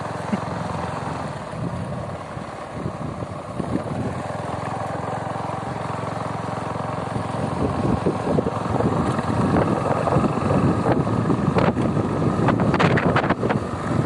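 Gusty storm wind buffeting the microphone. It gets louder about halfway through, with crackling buffets near the end.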